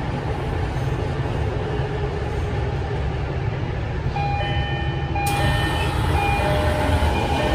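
Subway train car interior with a steady low rumble as it comes to a stop at a platform. From about four seconds in, a series of steady electronic chime tones at several pitches sounds as the doors open.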